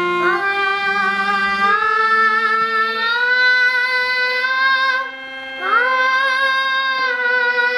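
A young girl singing long, held notes with upward slides into them, accompanied by a harmonium's sustained reed chords. The voice drops away briefly about five seconds in and comes back with a rising slide.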